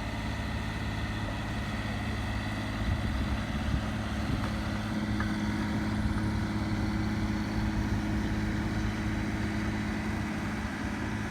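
Heavy diesel engine of asphalt paving equipment running steadily at a constant speed, with a few brief knocks about three to four seconds in.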